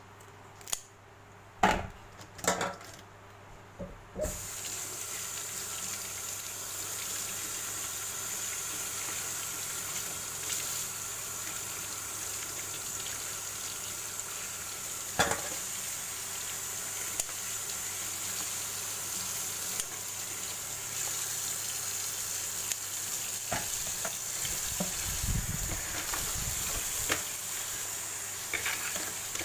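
Kitchen scissors snip through a blue swimmer crab's shell a few times. About four seconds in, a kitchen tap starts running steadily into a stainless steel sink as the crab pieces are rinsed under it, with an occasional knock of shell against the sink.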